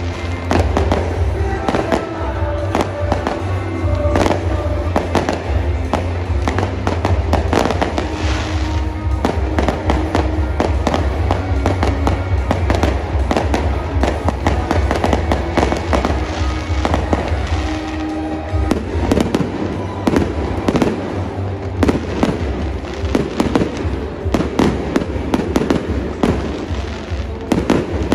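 Aerial fireworks bursting and crackling in a rapid, unbroken barrage, with music playing underneath for much of it.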